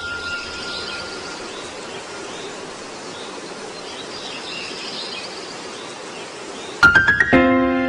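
A steady hiss of background ambience with faint high chirps. Near the end, music comes in with a quick flurry of bright notes that settles into a held chord.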